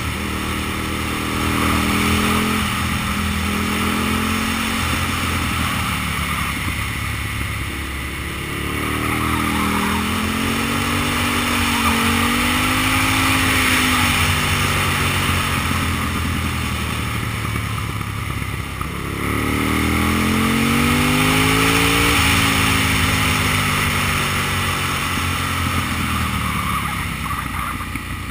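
Aprilia Tuono's 60-degree V-twin engine under way, its revs rising and falling again and again; about two-thirds through it climbs sharply and then cuts off suddenly. A steady rush of wind noise runs underneath.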